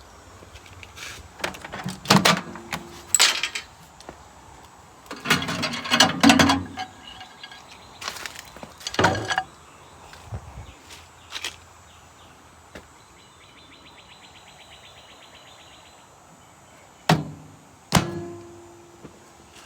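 Scattered clanks and knocks of scrap metal being handled, several with a short metallic ring, the loudest two near the end. A faint fast ticking runs in the quiet stretch in the middle.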